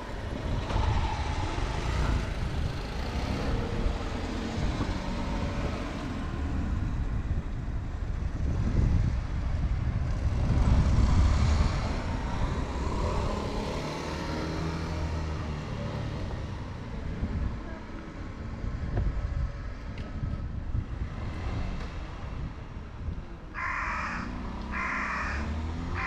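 A crow caws three times, about a second apart, near the end, over a low, uneven rumble.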